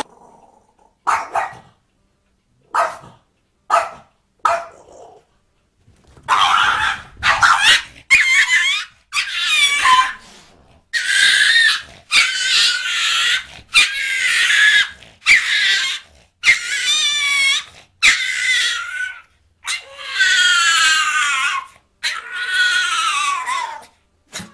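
Dogs barking and yelping: about five short barks in the first few seconds, then a long series of high cries whose pitch wavers.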